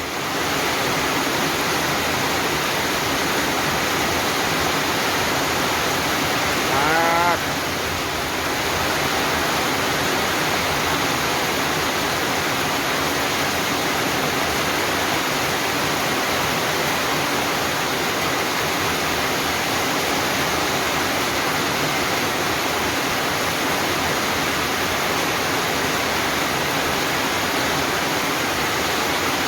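Heavy rain falling steadily, a dense even hiss. A short voice cuts through about seven seconds in.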